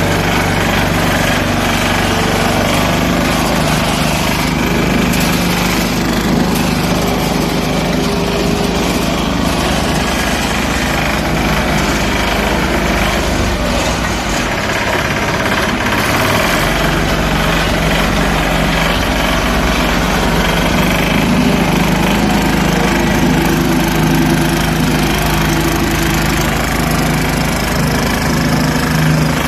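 Walk-behind road roller (FVR600) running: a small engine's steady, loud drone with a rapid juddering rattle from the vibrating roller.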